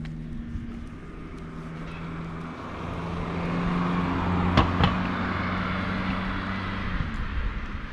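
A car driving along the road alongside, its tyre and engine noise swelling over the first few seconds and then holding. Two short clicks sound about halfway through.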